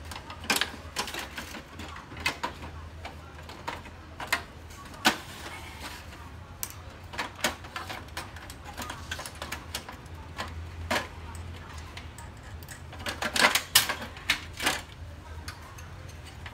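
Plastic cover panels of an HP LaserJet Pro MFP M227fdw laser printer being handled and lifted off: irregular clicks and knocks of hard plastic, with a quick run of rattling clicks near the end, over a low steady hum.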